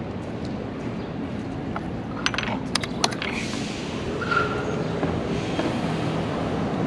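Steady street traffic passing, with a few sharp clicks about two to three seconds in: a plastic chess piece set down on the board and a digital chess clock button pressed as a move is played.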